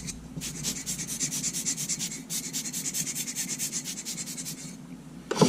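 Quick back-and-forth scrubbing on a small camera part, about ten strokes a second, working sand off it; the strokes break off briefly about two seconds in, stop near the end, and a short knock follows.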